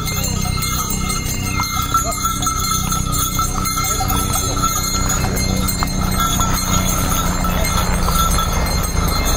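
Bells on a riding horse's harness jingling as it walks, with hooves clopping on the stone path. A steady low rumble runs underneath.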